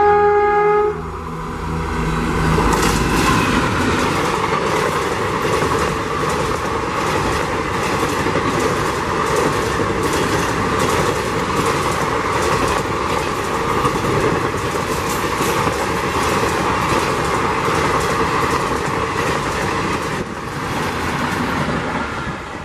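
Indian Railways WAP-4 electric locomotive's horn sounding and cutting off about a second in, then the express's coaches passing close at speed, wheels clattering steadily over the rail joints. The clatter drops away near the end as the last coaches go by.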